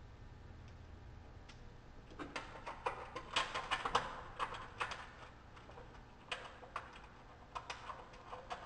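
Small clicks and rattles of hands working parts on an aluminum radiator and its fan-shroud mounting, thick for a few seconds starting about two seconds in, then a few scattered clicks.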